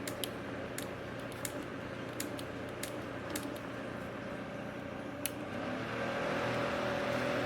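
Small battery-powered clip-on fan running with a steady whir, with light plastic clicks from handling. About five seconds in, a click is followed by a louder, fuller whir, as the fan is stepped up to a higher speed.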